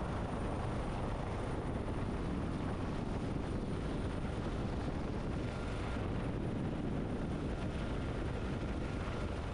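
Rescue helicopter running steadily, a dense, even drone of engine and rotor noise.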